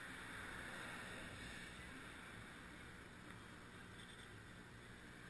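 Near silence: a faint, steady background hiss and low rumble with no distinct event.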